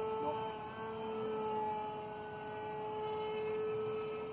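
Electric motor and propeller of a quarter-scale radio-controlled Quicksilver-style ultralight in flight, a steady high-pitched whine, with its battery running low.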